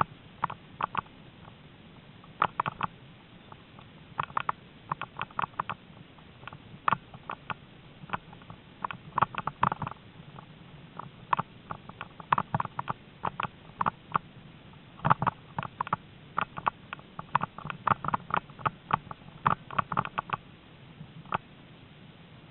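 Irregular clusters of sharp clicks, knocks and rattles from a malamute-drawn training rig jolting over a bumpy grass trail. The clatter stops shortly before the end, leaving a low steady hiss.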